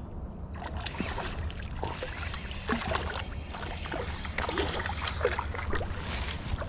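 Water splashing and sloshing in short irregular bursts as a hooked smallmouth bass thrashes at the surface, over a steady low rumble.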